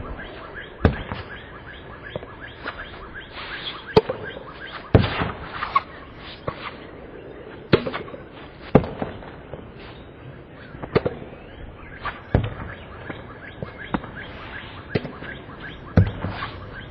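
Tennis balls struck by a racket and bouncing on a hard court: sharp, irregular pops, about eight of them, a second or several seconds apart.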